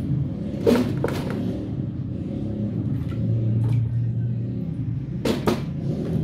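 Wet pieces of peeled cassava knocking into a metal rice-cooker pot, two pairs of knocks about four seconds apart, over a steady low hum.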